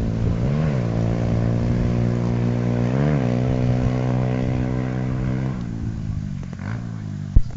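125cc pit bike's single-cylinder four-stroke engine running at a steady pitch, blipped up briefly twice, then easing off and fading about five and a half seconds in. A single sharp knock near the end.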